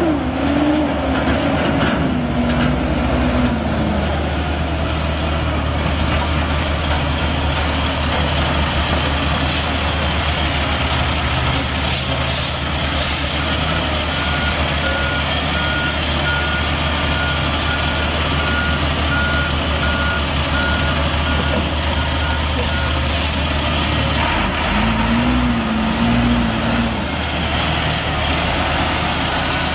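Caterpillar 3126 inline-six turbo diesel of a Sterling L7501 dump truck running, its pitch rising and falling near the start and again near the end. A reverse backup alarm beeps steadily for about ten seconds in the middle, and there are a few short hisses.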